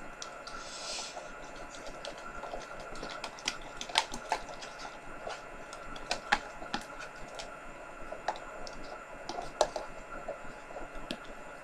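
A spoon stirring slime in a plastic container, giving scattered light clicks and scrapes against the plastic over a faint steady hum.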